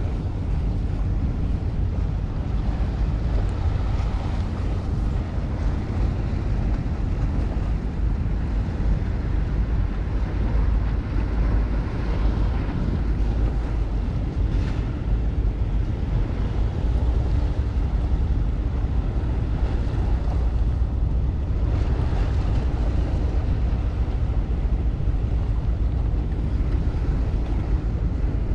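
Wind buffeting the microphone in a steady low rumble, with a wash of harbour water beneath it.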